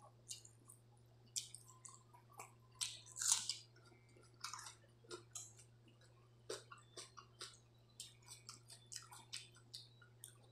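Close-up eating sounds: chewing and lip smacks on mouthfuls of water rice, with wet squishes from the rice being mixed by hand in its water. The smacks come in quick irregular runs, the loudest about three seconds in.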